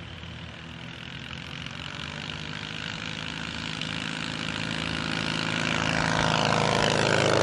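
Engine and propeller of a Hummel UltraCruiser all-metal ultralight flying low past, growing steadily louder as it approaches.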